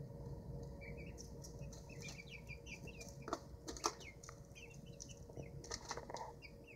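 Young Old English Game bantam chickens peeping: a run of short, falling peeps, several a second, from about a second in. A few sharp knocks come around the middle and again near the end.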